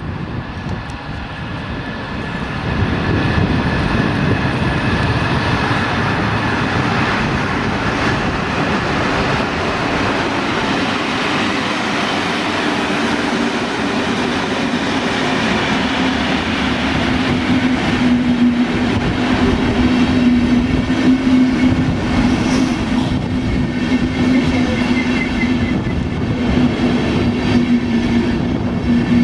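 Train running past close by: a steady rumbling rolling noise that gets louder about three seconds in, with a low humming tone joining about a third of the way through and growing stronger.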